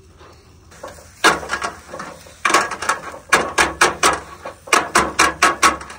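Metal barbecue skewers clinking and clattering against each other and the grill as a bundle of chicken skewers is turned over the charcoal: a string of sharp, irregular clicks starting about a second in and coming thicker after the midpoint.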